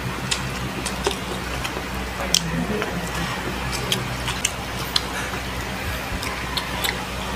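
Close-up eating sounds: scattered wet clicks and lip smacks of chewing, with fingers picking at braised pork and rice on a plate, over a steady low hum.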